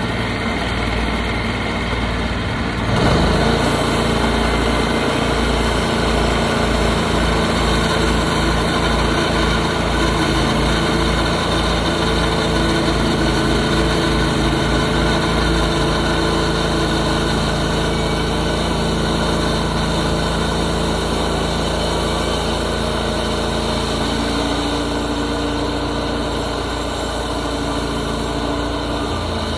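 Portable sawmill's gas engine running steadily. Its note steps up and gets louder about three seconds in, and shifts again near the end.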